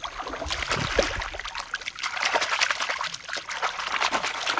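Shallow river water splashing and trickling as a fish is let go by hand and kicks away, in a dense run of small sharp splashes.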